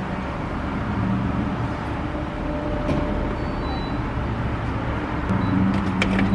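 Steady rumble and hiss of vehicle and machinery noise at a gas station pump, with a low hum that grows louder about five seconds in.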